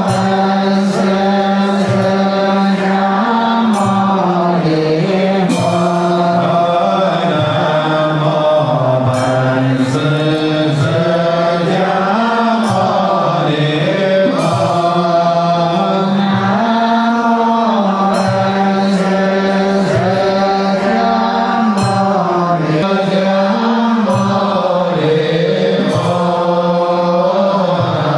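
Slow, melodic Buddhist chanting by a group of voices, holding long notes and gliding slowly from pitch to pitch without a break. Faint sharp ticks sound now and then over it.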